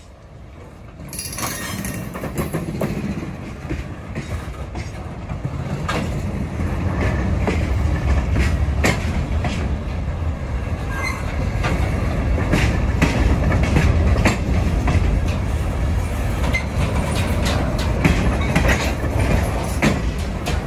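Freight cars rolling past close by: a heavy low rumble of steel wheels on rail with many irregular clicks and clanks, swelling up over the first couple of seconds and then staying loud.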